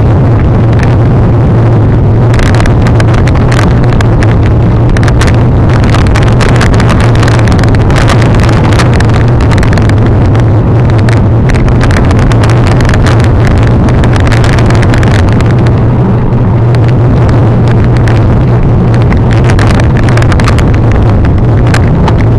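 Mountain bike descending a rough singletrail downhill: a loud, constant rushing rumble with a dense, irregular rattle of clicks and knocks from the bike over the rocky trail.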